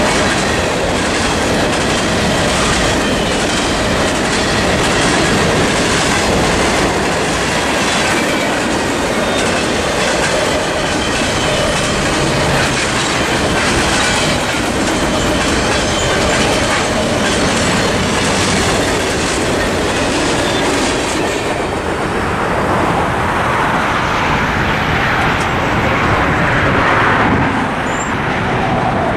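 Mixed freight train's cars passing at speed over the crossing, a steady rumble and rush with wheels clacking over the rail joints, while the crossing's electronic bell rings. About 22 seconds in, the last car clears and the rushing noise falls away.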